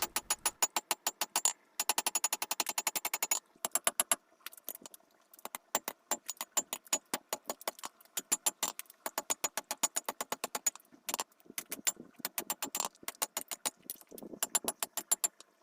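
Hammer blows on steel over an anvil, struck in rapid runs of several blows a second with short pauses between runs; each blow rings metallically. This is the hand forging of a bottom fuller over the anvil.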